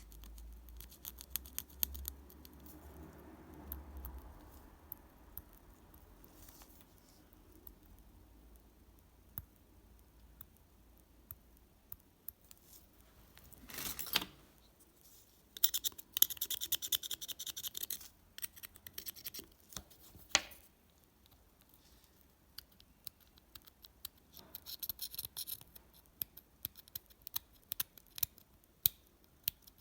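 Small handling noises from hand work at a bench: scattered sharp clicks and snips, with short bursts of scratching or scraping about 14, 16 to 18 and 25 seconds in.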